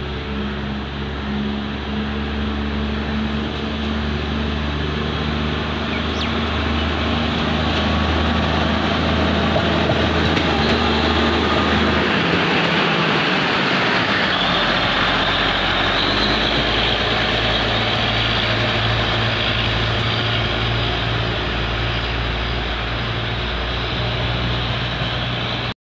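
Plasser Duomatic track-tamping machine travelling along the rails, its diesel engine humming steadily over the rumble of its wheels on the track. The engine note changes about halfway through.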